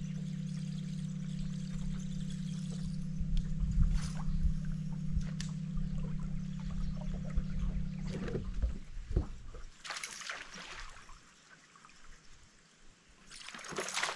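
A steady electric hum runs and then stops about two-thirds of the way through, typical of a bass boat's bow-mounted trolling motor. Near the end comes a loud water splash as a bass strikes the topwater buzz bait at the surface.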